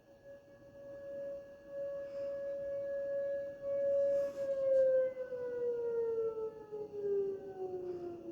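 Outdoor warning siren sounding one steady tone with overtones, at the end of a siren test. About four seconds in, its pitch starts to fall steadily as the siren winds down.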